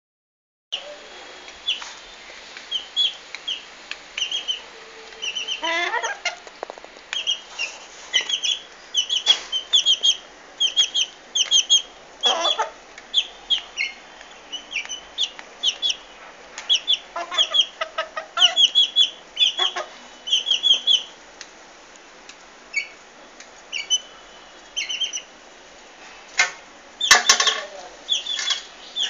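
Young chickens peeping over and over in short, high calls that come in quick runs, with a few short noisy bursts, the loudest near the end.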